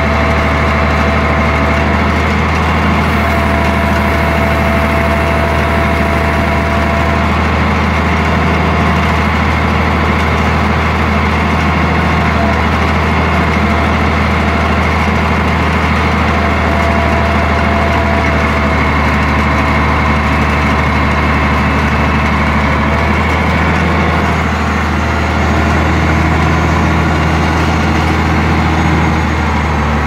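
Tractor engine running steadily at a constant speed, heard from inside the cab while pulling a John Deere round baler, with a slight shift in the engine note about three-quarters of the way through.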